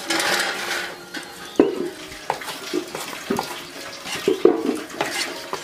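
Water splashing, then a scatter of hard clinks and knocks from objects moving in a water-filled container, the sharpest about one and a half seconds in.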